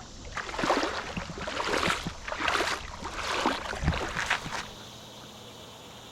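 Legs wading through shallow creek water, a sloshing splash with each stride, about six strides in a steady rhythm that stop near the end.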